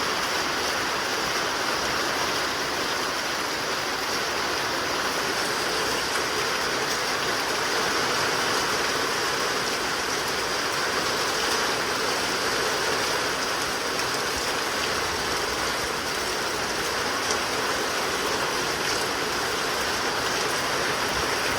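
Heavy rain pouring down steadily in a downpour, a constant rushing hiss with no breaks.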